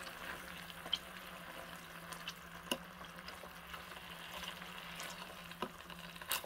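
Longganisa sausages sizzling gently in oil in a mini electric grill pan, with a few sharp clicks of a metal fork against the pan as they are turned.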